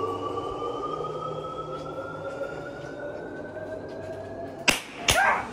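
A slowly rising, siren-like tone of a few pitches sounding together, ending in two sharp hits about a second apart just before the end.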